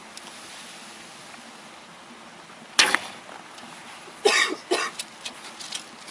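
A bow shot once about three seconds in: a single sharp snap of the released string. About a second and a half later come two short coughs, then a few faint clicks.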